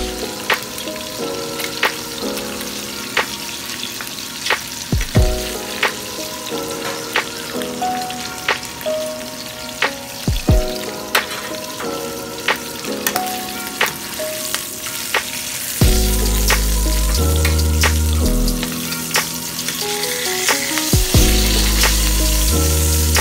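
Pork chops frying in hot oil in a pan, a steady sizzle with frequent sharp pops and crackles of spattering oil. Background music plays along, louder with a heavy bass line in the last third.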